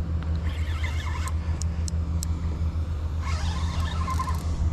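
Wind buffeting the microphone in a steady, pulsing low rumble. Two brief hissy patches, about half a second in and again past three seconds, sound like water splashing against the kayak.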